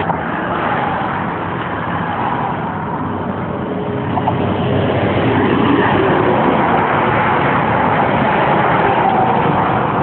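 Road traffic passing close by, a steady rush of tyre and engine noise that grows louder about four seconds in and stays up.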